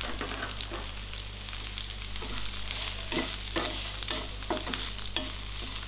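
Shallots, whole spices and freshly added grated coconut frying in a non-stick pan, a steady light sizzle, with a wooden spatula scraping and stirring through it every half second or so. The masala is being sautéed until its raw smell goes, ready to be ground to a paste.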